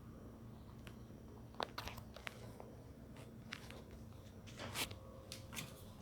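Scattered light clicks and soft rustles of handling over a faint steady hum, the loudest about a second and a half in and again near the five-second mark.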